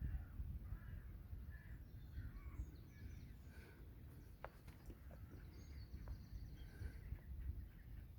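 Outdoor park ambience: scattered bird calls and chirps from several birds over a steady low rumble.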